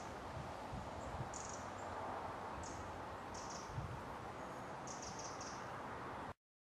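Outdoor woodland ambience: short, high-pitched chirps of small birds recur every second or so over a steady background hiss, with occasional low rumbles. The sound cuts off abruptly near the end.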